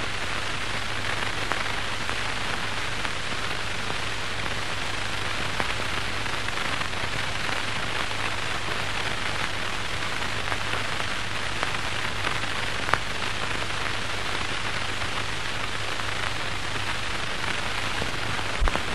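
Steady hiss and crackle of an old optical film soundtrack, with a low hum and an occasional faint click.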